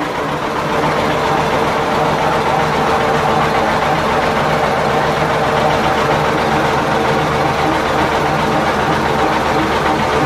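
Tractor engine running with its PTO driving a rear-mounted finishing mower, with the gearbox, V-belts and blades turning steadily on a test run with newly fitted belts.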